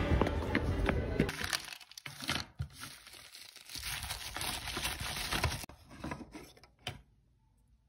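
Background music for the first second or so, then plastic bubble wrap crinkling and rustling as a package is unwrapped by hand, with a couple of sharper clicks near the end.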